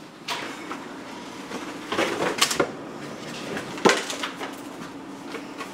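Refrigerator door pulled open, then bottles clinking and rattling as a cardboard drinks case is handled and lifted out, with a sharp knock a little before the end.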